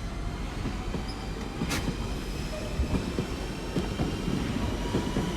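Trains moving through the station: a steady low rumble of wheels on rail with a faint high squeal, and a sharp click a little under two seconds in.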